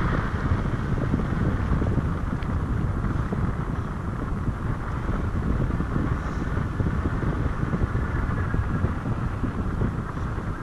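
Airflow from a paraglider in flight rushing over the camera microphone: a steady low wind rumble with constant flutter.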